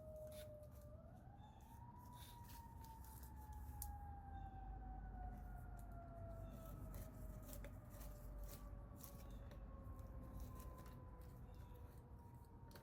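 Faint siren wailing: a single tone that rises briefly about a second in, then glides slowly lower for the rest of the time. Light clicks and taps from handling parts sound over it.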